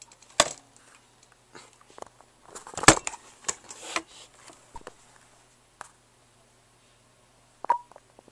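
Scattered clicks, knocks and light clatter of things being handled at a desk with a laptop. The sharpest knock comes about half a second in, and a cluster follows about three seconds in.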